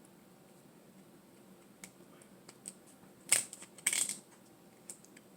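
Dungeness crab shell being broken apart by hand, close to the microphone: a few sharp cracks and clicks, loudest a little past three seconds in, with a cluster of crackling about four seconds in.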